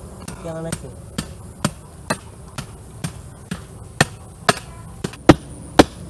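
Dull wooden knocks, about two a second and growing louder toward the end, as a wooden stake is driven crosswise through soft banana tree trunks to pin them into a raft.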